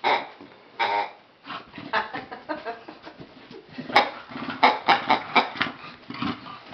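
A bulldog playing with a hedgehog toy: an irregular run of short animal grunts and squeaks, with a couple of sharp clicks about four and five seconds in.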